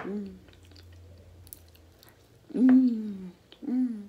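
A person chewing and eating with their hands, with small wet clicks and smacks. Three short hummed 'mm' sounds falling in pitch, the loudest about two and a half seconds in and a shorter one near the end.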